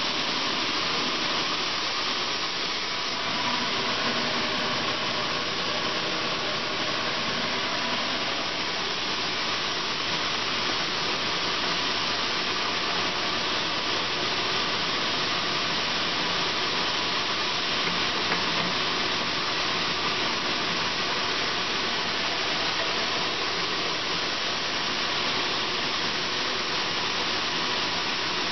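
LeBlond Makino Regal 19" x 80" engine lathe with a Servo Shift geared headstock, running with the chuck spinning: a steady mechanical hum and hiss with faint steady tones from the headstock gearing.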